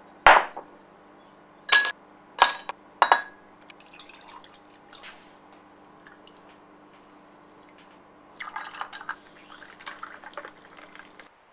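Glass tumblers clinking, four sharp knocks with a short ring in the first three seconds. Near the end, a clear drink is poured from a bottle into the glasses, splashing for about three seconds.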